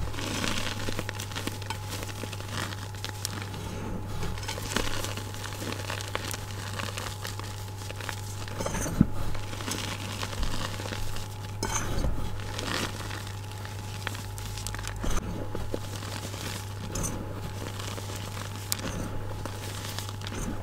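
Oiled hands squeezing and crumbling loose, powdery gym chalk in a bowl: soft, irregular crunching and rustling, with a few sharper crunches, the loudest about nine seconds in.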